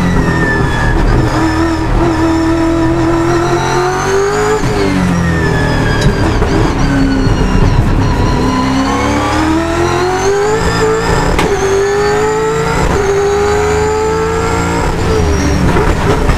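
V8 touring car's V8 engine heard onboard, lapping a circuit: the note climbs in pitch under throttle, drops off sharply under braking, and runs at its lowest through a slow corner about halfway through before climbing hard again. Near the end it falls away under heavy braking.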